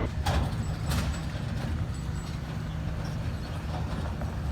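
Farm tractor engine running, a steady low rumble, with a couple of sharp knocks in the first second.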